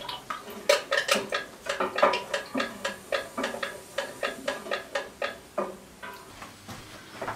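Buttermilk glugging out of a tipped carton into an enamel pot of warm sheep's milk: a quick run of liquid plops, about four a second, that thins out about five and a half seconds in.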